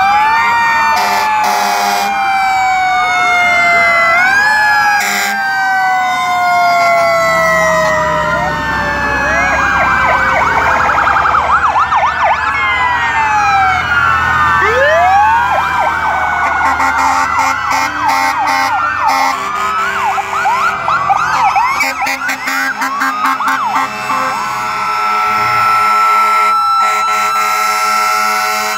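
Sirens of several fire trucks sounding at once, slow wails and fast yelps overlapping in rising and falling pitch. A steady tone comes in near the end.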